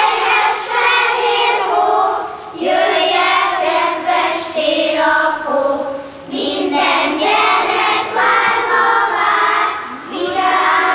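A group of children singing a song together, in phrases of about four seconds each with short breaths between them.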